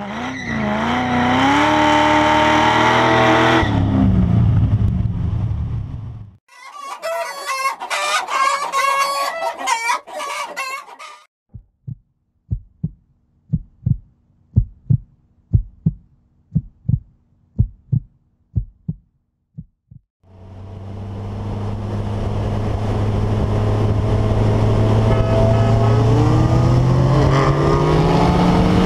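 A rooster crowing, then hens clucking, followed by a string of about fifteen low thumps. From about twenty seconds in a car engine runs steadily, then revs up near the end.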